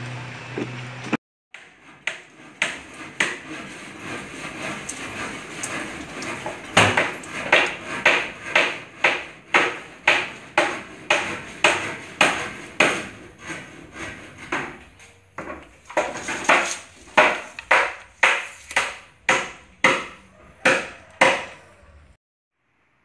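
Hammer striking wood in a long, steady series of blows, about two a second. The blows get louder about seven seconds in, pause briefly, then carry on until near the end.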